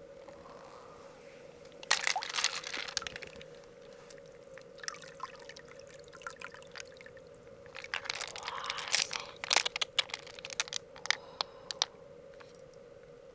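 Wet squishing and crunching with sharp clicks as a freshwater mussel is handled and worked open, in two busy spells about 2 and 8 seconds in. A steady hum runs underneath.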